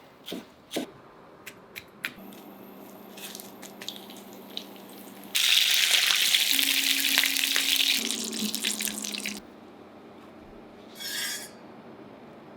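Kitchen sounds: a few sharp clicks and taps, then about four seconds of loud sizzling from tofu frying in oil in a pan, which starts and stops abruptly. A short hiss comes near the end.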